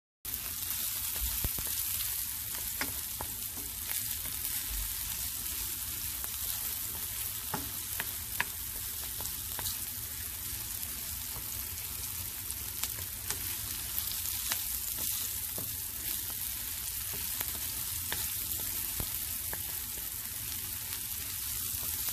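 Diced onions sizzling in hot oil in a stainless steel pan, steady throughout, with a wooden spoon stirring and now and then clicking or scraping against the pan.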